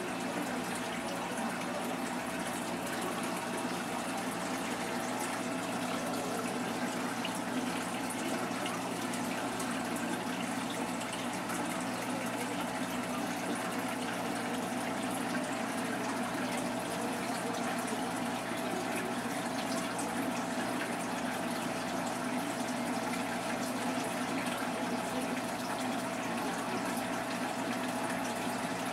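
Saltwater reef aquarium's water circulation: a steady rush of running water with the even hum of its pumps.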